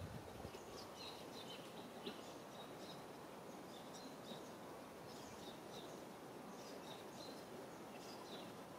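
Faint outdoor ambience with small birds chirping: short high chirps scattered throughout, over a steady background hiss.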